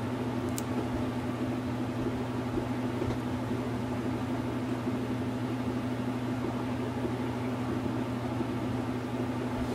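Steady low electrical hum with an even hiss: the background noise of a running machine or appliance. A single light click comes about half a second in.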